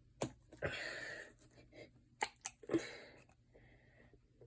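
Plastic squeeze bottle of acrylic craft paint being handled: a few sharp clicks of the cap, and two short squirting squeezes as paint is pushed out.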